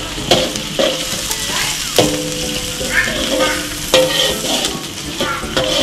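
Chopped garlic sizzling in hot oil in a steel wok while a metal spatula stirs it, scraping and knocking against the pan. Each knock leaves a short metallic ring. The garlic is being sautéed until it turns fragrant.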